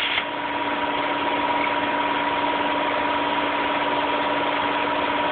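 Plasma cutting arc of a CNC plasma table hissing, then cutting off abruptly just after the start as the cut ends. A steady mechanical hum and hiss carries on without a break.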